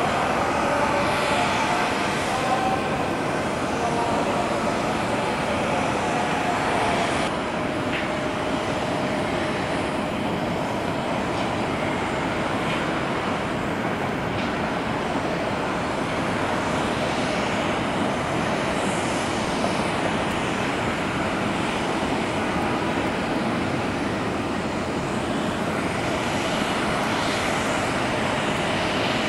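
Airliner jet engines heard across the airfield: a Boeing 777 rolling out after landing, with a steady whine over the engine noise for the first several seconds. After that comes a steady, slightly quieter rumble of jet engine noise while a regional jet comes in to land.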